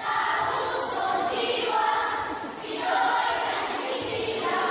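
A group of schoolchildren's voices reciting in unison, a Filipino choral recitation (sabayang pagbigkas) delivered in chanted phrases with short breaks between lines.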